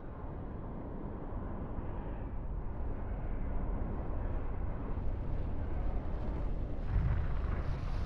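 Deep, steady rumble of a volcanic eruption's pyroclastic flow and rising ash cloud. It slowly grows louder, with a heavier surge about seven seconds in.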